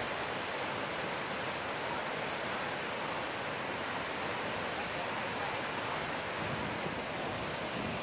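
Steady, unbroken rushing of tall waterfalls plunging into a gorge.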